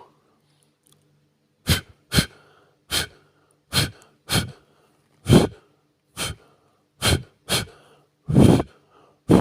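Short puffs of breath blown onto a surface, about a dozen separate blows, each lasting well under a second, with silent gaps between them.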